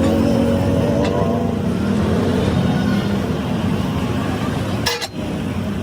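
Vehicle engine running amid road traffic, with a short sharp metallic clink just before the end.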